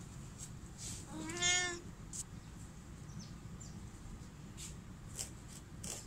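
A kitten meows once, about a second and a half in: a short call that rises slightly and then holds.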